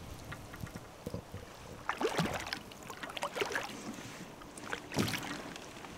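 A hooked fish splashing and thrashing at the water surface beside a small boat while it is played in: irregular splashes and knocks, heaviest about two seconds in and again about five seconds in.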